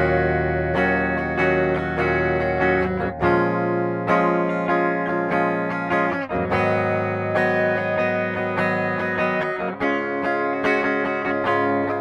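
A Sterling by Music Man SUB Series AX3 electric guitar is played with a clean tone on its bridge humbucker. Picked chords ring out, changing every second or two.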